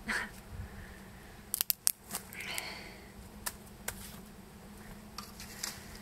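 Cordage handled between the hands, making a few sharp clicks and snaps with light rustling. There is a quick cluster of clicks about a second and a half in and single clicks later.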